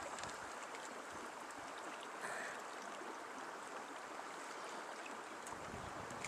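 Steady rush of a small creek's running water, with a short faint sound about two seconds in. Wind starts buffeting the microphone with a low rumble near the end.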